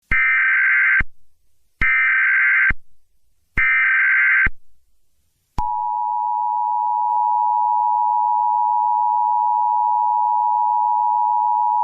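Emergency Alert System tones: three short bursts of the SAME digital header, each just under a second long. About five and a half seconds in, the steady two-tone EAS attention signal begins and holds.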